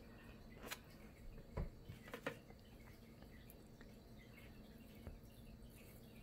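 Near silence, with a few faint short scrapes and taps in the first two and a half seconds as a palette knife spreads acrylic paint on canvas.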